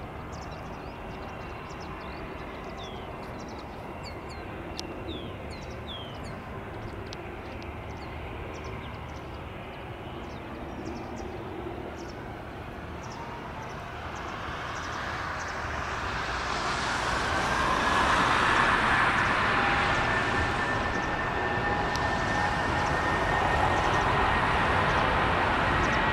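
Airbus A320 jet engines at taxi power: a rush with a steady whine that swells about halfway through as the airliner taxis closer, then stays loud. Small birds chirp faintly in the first part.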